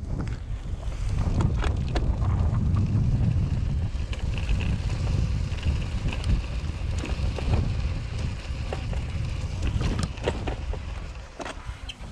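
Wind buffeting the microphone of a camera on a moving bicycle's handlebars, a dense low rumble, with scattered sharp knocks and rattles from the bike jolting along the path. The rumble eases off near the end.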